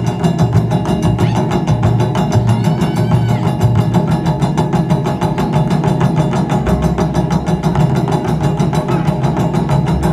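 Japanese taiko drum ensemble playing: many barrel drums struck with wooden sticks in a fast, driving, steady rhythm with deep booming strokes.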